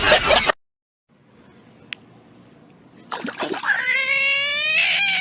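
A cat giving one long, drawn-out yowl of about two seconds, rising in pitch at first and then held.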